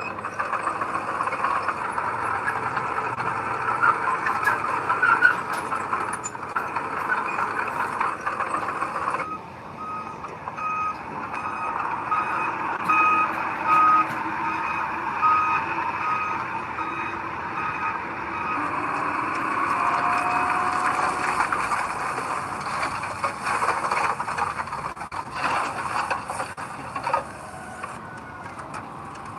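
Heavy earthmoving machinery running, with scattered metallic knocks. In the middle, for about eight seconds, a reversing alarm beeps steadily at about one beep every 0.8 seconds, the sign of a machine backing up.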